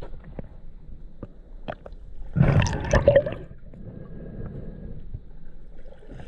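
Water sloshing and gurgling, with scattered small clicks and a louder splash lasting about a second, a little over two seconds in.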